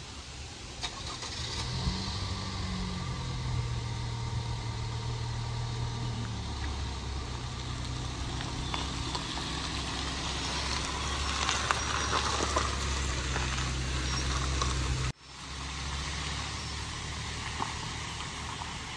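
SUV driving slowly over a gravel road: a low, steady engine hum with tyres crunching on the gravel, loudest as it passes by. The sound cuts out abruptly for an instant about three-quarters of the way through, then carries on more quietly as the vehicle moves away.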